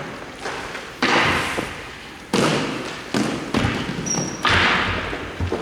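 A run of about six sharp knocks and thuds, each fading out quickly after the hit.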